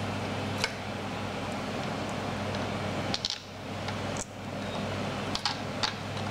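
A few light clicks and taps of hands handling the spa blower motor's wiring and brush assembly, over a steady background hum.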